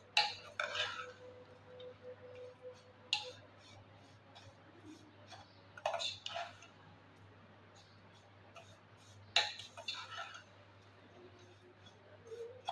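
A metal spoon stirring dry vermicelli in a metal pot, scraping and clinking against the pot's sides in uneven clatters every few seconds, with the dry strands rustling between them.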